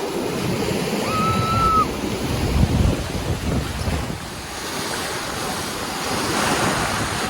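Ocean surf washing in steadily, with wind buffeting the microphone; a wave swells louder around six to seven seconds in. A short high-pitched call sounds about a second in.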